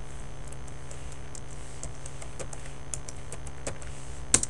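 Typing on a computer keyboard: an irregular run of light key clicks as a password is entered, with one louder click near the end, over a steady low hum.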